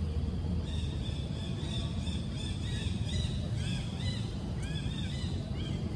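Outdoor ambience: a steady low rumble with small birds chirping above it, short arched calls repeated many times from about a second in.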